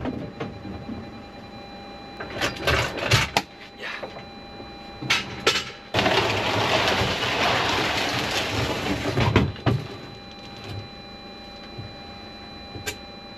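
A few knocks and clunks, then a long scraping slide of about three and a half seconds as the curtain board is dragged out along the van floor, ending in a knock.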